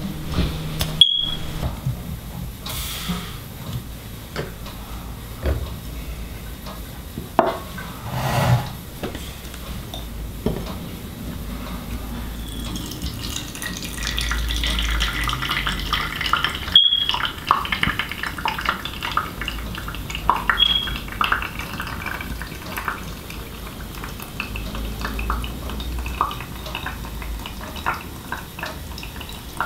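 An Aeropress coffee maker being handled and its plunger pressed down into a glass carafe: small clicks and knocks of plastic and glass, with liquid trickling and a hiss. A few short high beeps come through.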